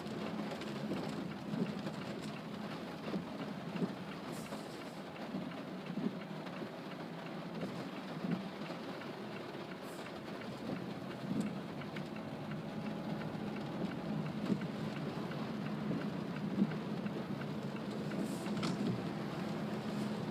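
Heavy rain falling on a Mazda CX-3, heard from inside the cabin, over a steady low hum of the car running on the wet road.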